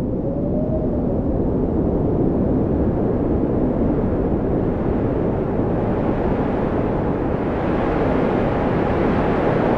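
Thunder rumbling, a long, continuous low roll that grows fuller near the end.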